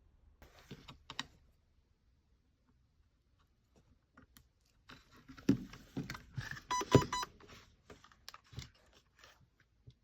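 Clicks, knocks and rattles of an airsoft gun being handled before firing, with a brief pulsing beep tone about seven seconds in.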